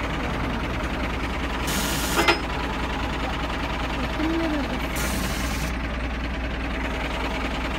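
Four-wheel-drive vehicle's engine idling steadily. A sharp knock comes about two seconds in, and short bursts of hiss come around two and five seconds in.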